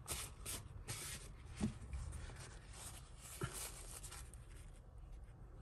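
Soft scratching and rubbing strokes from jewellery being handled and tested on the table, a few close together in the first second and a half, then sparser.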